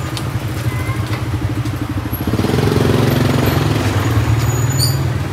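Motor scooter engines running close by in alley traffic. One grows louder about two seconds in as it passes, then eases near the end.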